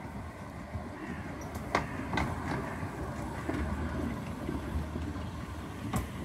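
Small narrow-gauge saddle-tank steam locomotive running slowly past as a light engine: a steady low rumble with a few sharp clicks, two about two seconds in and one near the end.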